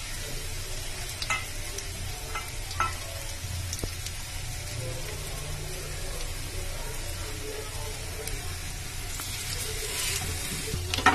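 Grated-potato tikkis sizzling as they shallow-fry in hot oil on a non-stick pan, a steady hiss with a few faint crackles over a low steady hum. Near the end a metal spatula scrapes under them with a sharp click against the pan.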